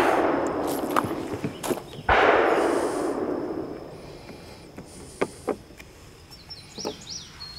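A single gunshot from another shooter on the range about two seconds in, its report echoing and dying away over a couple of seconds. A few light clicks follow.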